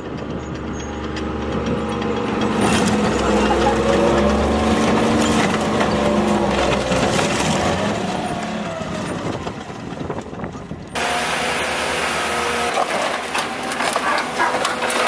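Heavy machinery working: an engine with a wavering whine that rises and falls. About eleven seconds in, an abrupt cut to other machinery noise with clattering.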